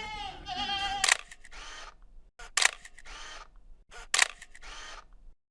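A goat bleating twice within the first second, then three sharp clicks, each followed by a short hiss, about a second and a half apart. The sound cuts out abruptly near the end.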